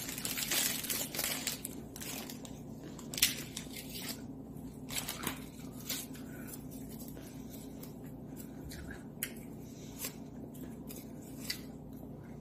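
Plastic wrapper crinkling as a fortune cookie is unwrapped, then a handful of scattered sharp cracks and crunches as the crisp cookie is broken open and bitten.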